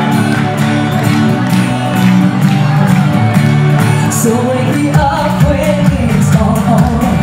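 Pop song played loud over a hall PA: a woman singing into a microphone over a backing track with a steady beat. A heavier bass line comes in about five seconds in.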